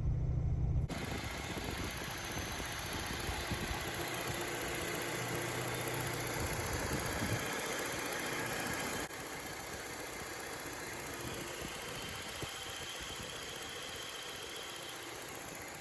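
Peugeot 306 XSi's engine idling steadily. Its level drops suddenly about nine seconds in.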